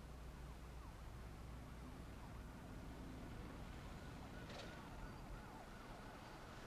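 Faint background ambience: a steady low hum under a soft hiss, with a short soft rustle about four and a half seconds in.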